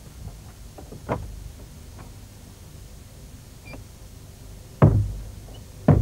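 Sharp bangs over a low rumbling background: a smaller one about a second in, then two loud ones about a second apart near the end, each with a short booming tail.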